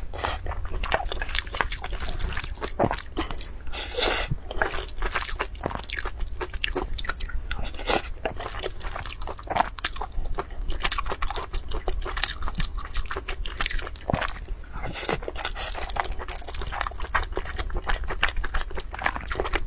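Close-miked chewing of a mouthful of fried rice: a steady stream of short, wet mouth clicks and smacks with some crunching.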